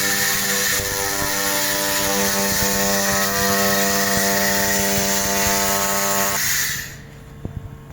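3 kW handheld laser welding/cleaning/cutting machine in operation: a loud, steady hiss over a steady hum. It cuts off about six and a half seconds in, leaving a few faint clicks.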